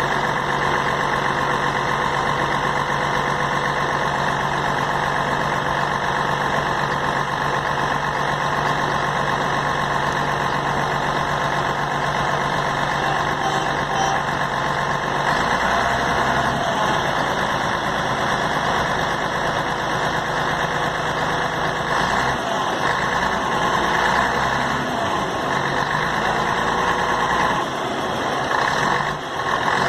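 Scania K113 CL coach's rear-mounted 11-litre straight-six diesel engine idling steadily, with a change in its low hum about halfway through.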